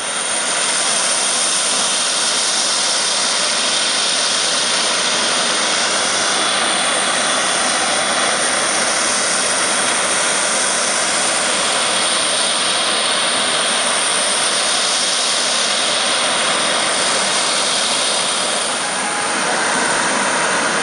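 Jet aircraft engine noise: a loud, steady rush with a high whine held throughout. Slow sweeps in the hiss come and go through the sound.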